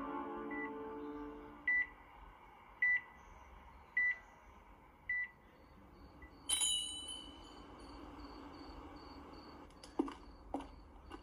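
Heart monitor beeping at a sickbed, short high beeps about one every 1.2 seconds as soft music dies away. About halfway a sudden bright, ringing sound breaks in, followed by a faint repeating high tone and two light knocks near the end.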